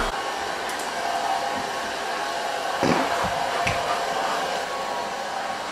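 Hair dryer blowing steadily to dry a wet puppy's coat after its bath, a constant rushing with a steady motor whine. There are two brief bumps near the middle.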